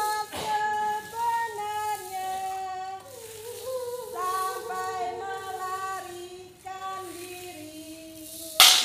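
A high female voice singing a slow melody in long held notes. A single loud, sharp knock near the end.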